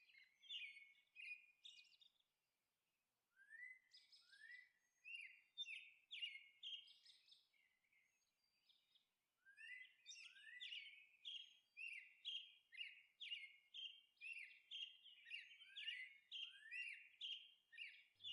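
Faint birdsong: small birds chirping in short, high, rising notes. The chirping stops for a few seconds about seven seconds in, then picks up again at a quicker, steadier pace.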